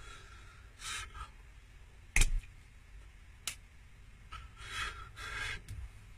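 Hands and clothing brushing and rubbing as a person signs. There is a sharp slap about two seconds in, a lighter click about a second later, and more rustling near the end.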